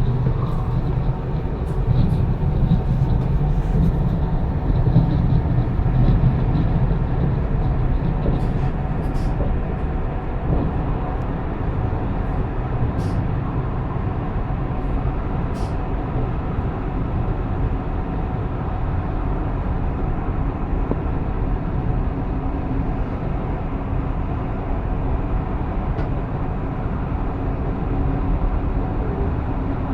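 Pendolino ED250 electric train running at speed, heard from on board: a steady low rumble with a few faint steady tones, and a few sharp clicks near the middle.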